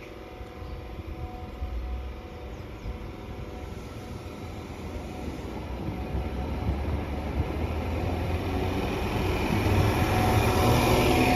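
Class 321 electric multiple unit pulling out of a station from a standstill and passing close by, its running rumble and wheel noise growing steadily louder as it gets under way.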